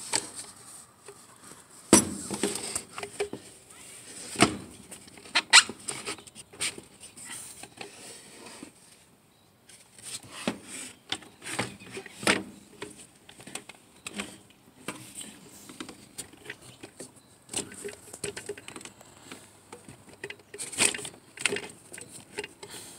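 Irregular clicks and knocks of a Stihl MS 170 chainsaw's plastic housing and handle being handled and worked apart by hand, as the handle's anti-vibration buffers are pried out. A few knocks stand out louder than the rest.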